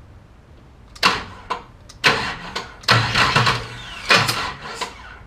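Small-block Chevy V8 being cranked over by its starter motor in several short bursts about a second apart, with the spark plug out so it does not fire: the engine is being bumped toward top dead center on the compression stroke.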